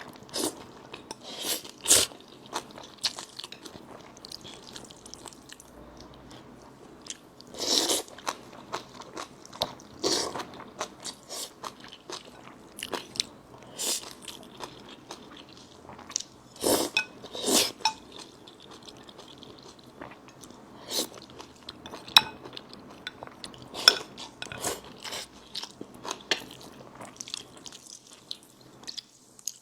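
Close-miked eating: irregular bites, crunches and chewing, with sharp clicks scattered through, in a steady stop-start pattern.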